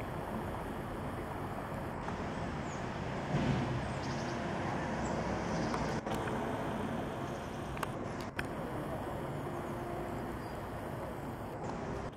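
Steady outdoor rumble of distant engine noise, swelling briefly a few seconds in.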